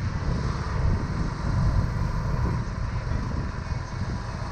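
Motorcycle riding along, its engine running under a steady, uneven low rumble of wind on the microphone.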